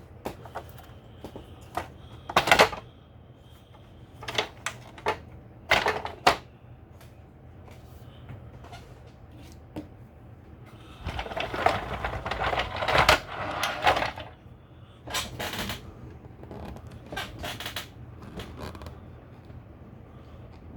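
Hard plastic toy parts being handled and set down on a table: scattered clicks and knocks, with a denser stretch of rattling and clattering a little past the middle.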